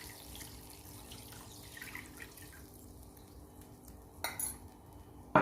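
Chicken stock dripping and trickling in a frying pan of wine and broth, with two sharp clinks near the end.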